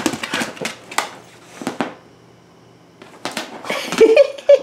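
Scattered knocks and rustles from a pit bull moving about among shredded cardboard and onto a pet bed, with a quiet pause about two seconds in. A brief voice-like sound near the end is the loudest moment.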